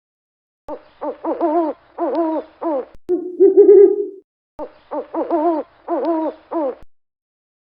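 An animal's hooting call: a run of quick hoots, one longer and louder hoot, then another run of quick hoots.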